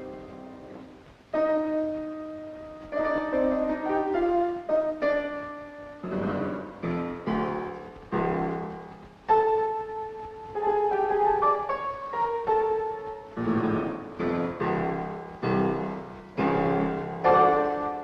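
Piano music on a 1930s film soundtrack: a melody with chords, each struck sharply and then dying away. It starts quietly and grows louder about a second and a half in.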